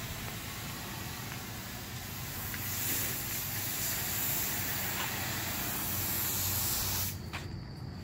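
Softwash hose nozzle spraying cleaning chemical onto a stucco wall at low pressure: a steady hiss that cuts off suddenly about seven seconds in.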